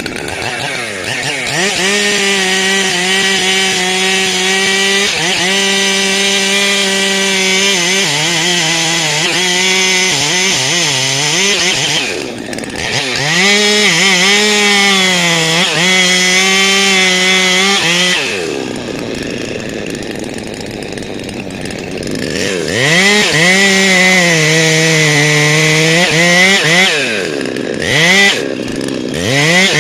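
Two-stroke chainsaw cutting into the base of a rain tree trunk, held at high revs with the pitch sagging and recovering under load. It drops back briefly about twelve seconds in, falls to a lower idle for a few seconds past the middle, then revs up and cuts again, with a couple of quick dips near the end.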